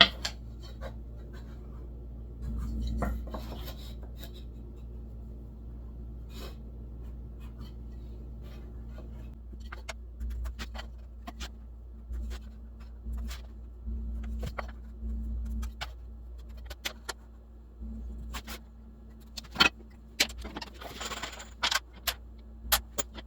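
Scattered light taps and clicks with two brief scrapes, about three seconds in and near the end, as the marking stick is laid on the hive cover's masonite panel and screw positions are marked. A steady low hum runs underneath.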